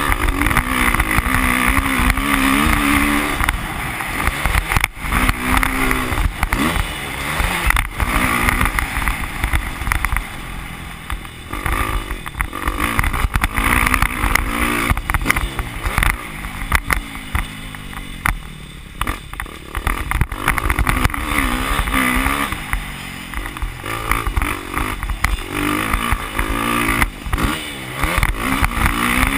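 Motocross dirt bike engine ridden hard around a dirt track, its pitch rising and falling again and again as the rider opens and closes the throttle and changes gear.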